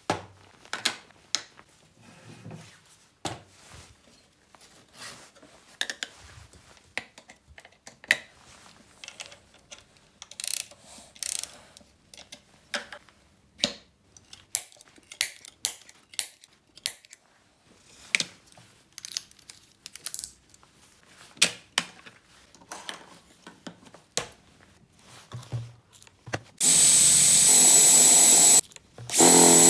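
Scattered clicks and knocks of tools and parts being handled, then an electric drill running in two loud bursts near the end, with a high whine.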